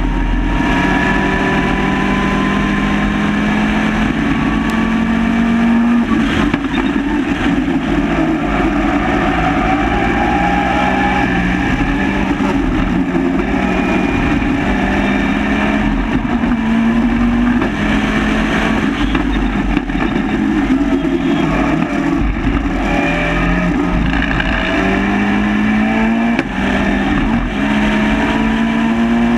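Caterham 420R's four-cylinder engine pulling hard on a fast lap, heard from an onboard camera: its pitch climbs through each gear and drops back at the upshifts, several times. A steady wind rush from the open cockpit runs underneath.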